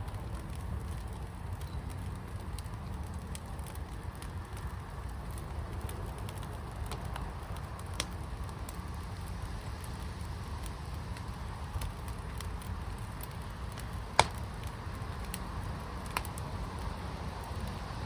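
Fire pit burning with a steady low rumble and scattered small crackles. A sharp pop comes about fourteen seconds in, with smaller ones about eight and sixteen seconds in.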